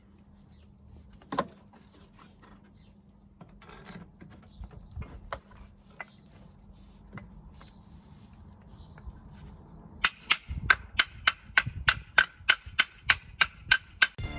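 Scattered clicks and knocks of tools on car parts, then, from about ten seconds in, a fast run of hammer blows on metal, about four a second, each ringing.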